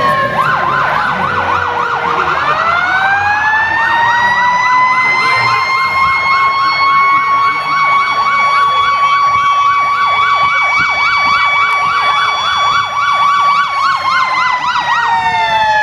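Two vehicle sirens sounding together: one in a fast yelp, the other a wail that winds up early on, holds a steady pitch, and winds down near the end.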